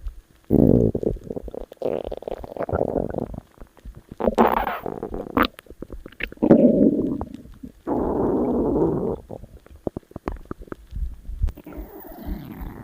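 Stomach growling: a string of separate rumbles, about six bouts of a second or so each, some sliding up or down in pitch, the last ones fainter.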